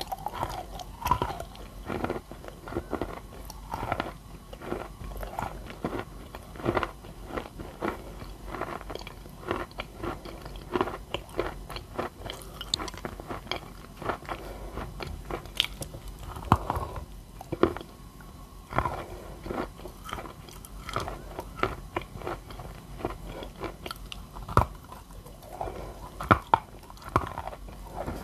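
Biting and chewing a wet chunk of edible clay: irregular wet crunches and crackles, with louder bites every few seconds.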